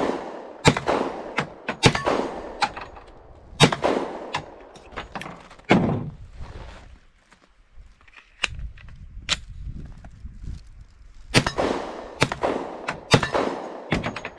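Glock 40 pistol in 10mm Auto fired shot after shot at a slow, uneven pace. Each report is sharp and trails off in echo, with a lull of about two seconds midway before the shooting picks up again.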